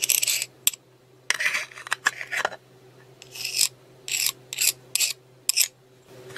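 Metal screwdriver scraping and smearing grease across the teeth of an angle grinder's gearbox bevel gear, in a series of short, irregular scrapes.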